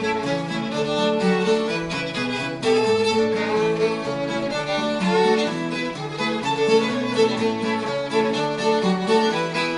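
Fiddle playing a fast old-time fiddle tune, note after note in quick succession, with acoustic guitar accompaniment underneath.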